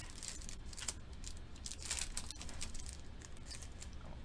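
Foil trading-card pack wrapper crinkling and rustling as it is handled and torn open, in a few short rustles, the loudest about a second and about two seconds in, over a low steady hum.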